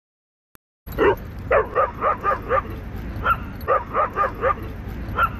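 A dog barking: a dozen or so short, high-pitched barks in two quick runs, starting about a second in, over a low wind rumble. This repetitive high-pitched barking is taken by the owner as a sign of an insecure or afraid dog.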